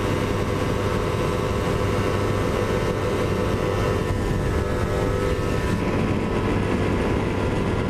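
Kawasaki Ninja 250R parallel-twin engine held steady at high revs at top speed, under heavy wind rush on the microphone.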